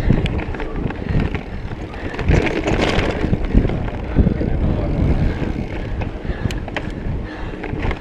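Mountain bike rolling fast over dirt singletrack: continuous knobby-tyre rumble and frame and drivetrain rattle, with wind buffeting the action-camera microphone. A few sharp clicks sound about six and a half seconds in.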